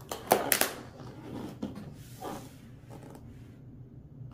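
A heavy cardboard box being handled and turned on a surface: a quick cluster of sharp knocks and scrapes in the first second, then a few softer scuffs of cardboard.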